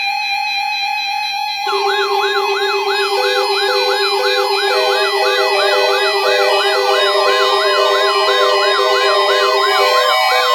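Dozens of NOAA weather alert radios going off together for a Required Weekly Test. After about a second and a half of steady electronic tones, a loud overlapping chorus of alarms starts at once: siren-like sweeps repeating about three times a second, a steady tone and rows of beeps.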